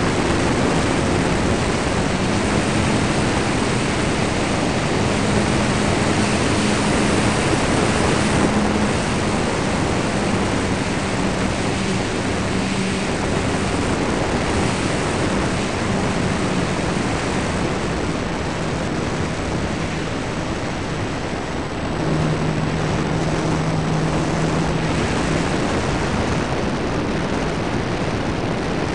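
Steady rushing wind over the belly-mounted onboard camera of an electric ParkZone T-28 Trojan RC plane in flight, under which the motor and propeller hum low, stepping up in pitch about two seconds in and dropping again past the twenty-second mark as the throttle changes.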